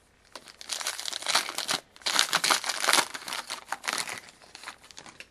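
Wrapper of a 2011-12 Contenders hockey card pack crinkling and tearing as the pack is opened by hand, in two spells with a short pause a little under two seconds in.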